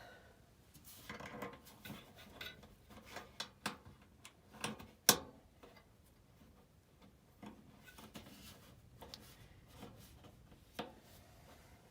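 Scattered clicks, clinks and light knocks of metal parts and tools being handled, at an uneven pace, with one sharp clack about five seconds in.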